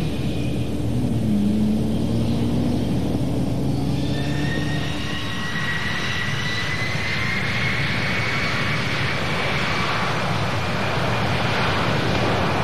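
Airbus wide-body jet airliner's turbofan engines running as it taxis. A high turbine whine sets in about four seconds in over a steady rumble, then climbs slowly in pitch and grows louder.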